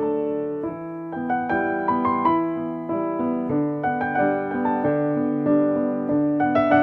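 Background piano music: a gentle, slow melody over sustained chords.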